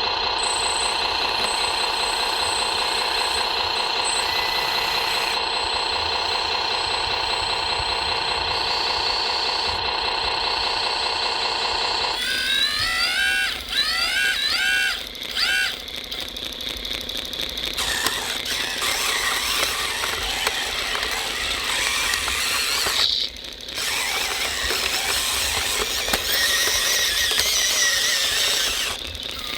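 Radio-controlled model trucks running: a steady electric whine for about twelve seconds, then repeated rising whines as the motors rev up under load.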